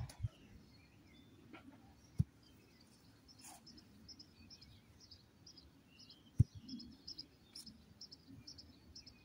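Small birds chirping and singing. Two dull thuds about two seconds in and at about six and a half seconds, the second the loudest, as small traffic cones are set down one by one on grass.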